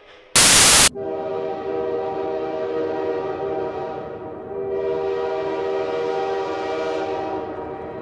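A sudden, very loud burst of noise lasting about half a second, then a multi-tone locomotive air horn sounding a steady chord in two long blasts, the second fading away near the end.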